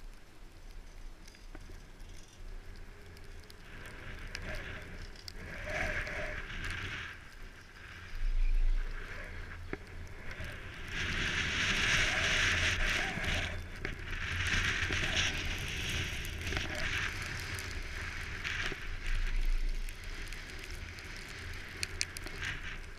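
Wind buffeting the microphone of a camera on a moving chairlift, a low rumble with hissing gusts that swell and fade several times.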